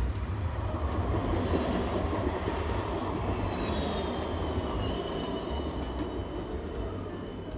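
A vehicle running: a steady low rumble and rushing noise, with a thin high whine that falls in pitch midway.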